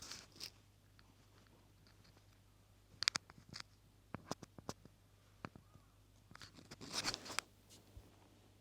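Scattered sharp clicks, then a short burst of close rustling about seven seconds in: a cat nosing and bumping the microphone held up to it.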